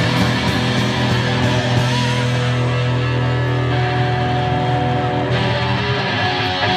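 Live rock band playing loud: distorted electric guitar with bass and drums, a low chord held ringing for about four seconds.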